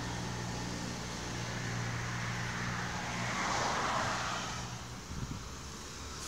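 A motor vehicle's engine running with a steady low hum; it swells about three and a half seconds in as if passing, then fades away around five seconds in.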